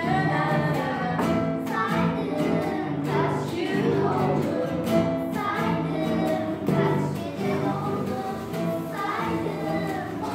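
Young girls' voices singing a song together over their own instrumental accompaniment.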